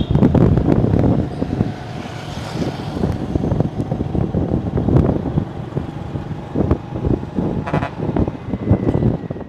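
Road traffic noise with a heavy, uneven rumble of wind on the microphone, and a vehicle horn honking briefly at the start and again about eight seconds in.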